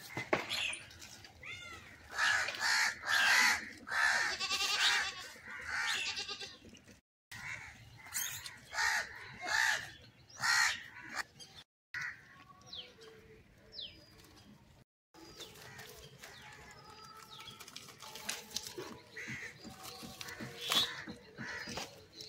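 Harsh animal calls come thick and repeated for the first several seconds, then thin out, with short thin bird whistles in the quieter second half. The sound drops out briefly three times.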